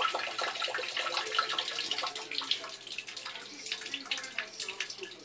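Water running, with many small irregular splashes and trickles, easing off somewhat near the end.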